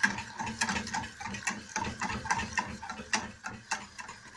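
Wire whisk beating béchamel sauce in a stainless steel saucepan, its wires clicking against the pan about four or five times a second, as the milk and flour are whisked over the heat until the sauce thickens.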